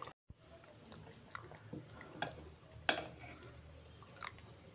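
A few faint clinks and knocks of a ladle against a metal cooking pot, the loudest about three seconds in.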